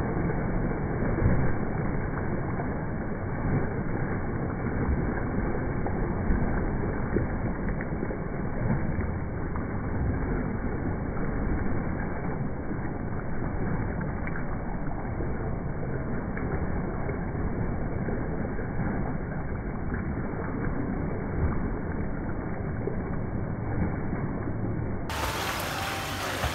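Water splashing from a swimmer's kicking, a steady wash of noise that is strongest in the low end.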